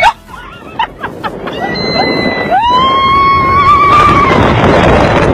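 Knocks and clatter near the start, then one long high yell from a rider on an amusement ride, held for under two seconds. A loud rush of wind over the phone's microphone builds under it and carries on.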